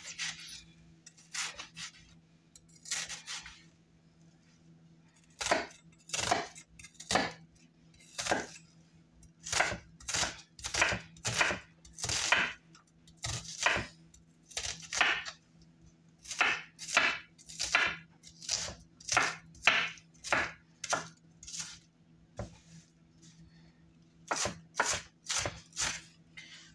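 Chef's knife chopping onion on a bamboo cutting board. A few scattered cuts at first, then a steady run of blade strikes on the board, about two a second, with a short pause near the end before the chopping resumes.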